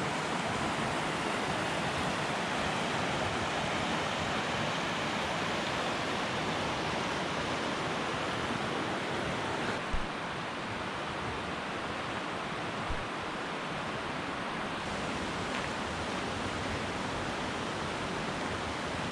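Steady rushing of a mountain river, an even wash of flowing water with no breaks, dropping slightly in level about ten seconds in.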